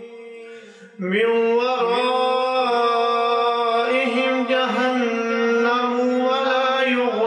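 A man's voice reciting the Quran in the melodic, drawn-out style of tilawat. It comes in after a short pause about a second in and holds long, slightly wavering notes.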